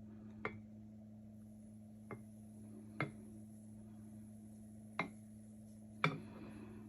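Five light knocks and clinks of hard kitchen and coffee gear being set down, spaced irregularly, the last the loudest with a short ring, over a steady low electrical hum.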